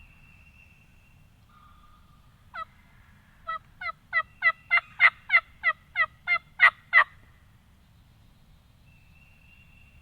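Wild turkey yelping: a run of about a dozen yelps, each dropping sharply in pitch, about three a second and getting louder toward the end.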